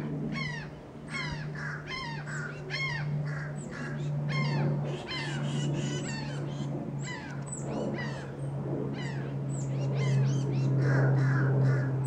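Birds mobbing a perched owl: a fast run of short, sharp, downslurred alarm calls, several a second and overlapping, over a steady low hum.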